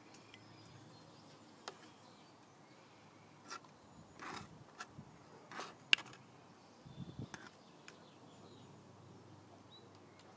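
Faint background with scattered sharp clicks and short rustles of handling around the open cat food tin, the loudest a single click about six seconds in.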